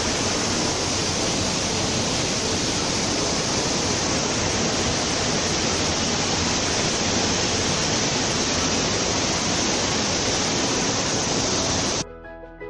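Loud, steady rushing noise, even and unbroken, that cuts off abruptly near the end.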